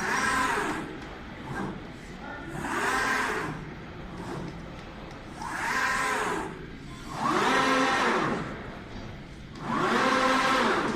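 Motor whine from a CNC glass cutting machine's gantry drive. It comes five times, a few seconds apart, each about a second long, rising and then falling in pitch as the gantry speeds up and slows down on each move.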